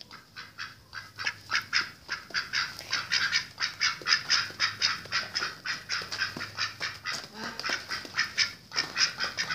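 Domestic duck quacking in a fast, steady series of short quacks, about four a second.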